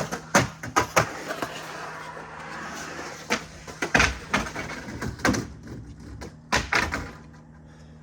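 Skateboard rolling in a backyard bowl: a steady wheel rumble broken by several sharp clacks and knocks from the board, ending about seven seconds in.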